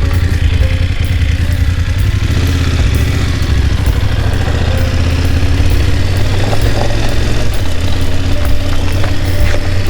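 BMW F 750/850 GS parallel-twin motorcycle engine running steadily with a strong low hum.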